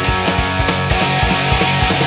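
Background rock music with distorted electric guitar and a steady drum beat.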